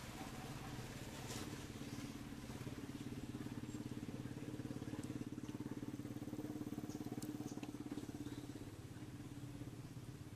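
A small engine running steadily, a low even hum that grows louder through the middle and eases off near the end, like a motor vehicle idling or passing slowly.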